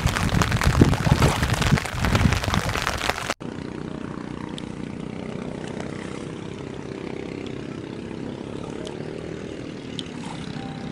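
Rain with gusts of wind buffeting the microphone, which stops abruptly about three seconds in. Then a quieter, steady engine drone follows, with a few faint ticks.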